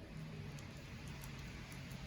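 Wood fire burning, with faint scattered crackles and small pops over a low steady hiss.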